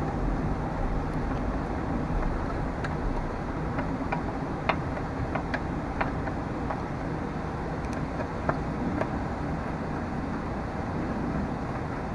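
A scattering of small, sharp clicks and ticks from screws and hand tools being handled while a small-engine carburetor is reassembled, over a steady low background hum.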